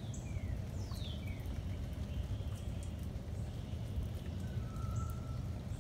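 Heavy rain falling steadily, with a few short bird calls and whistles over it, among them quick falling notes about a second in and a held note near the end.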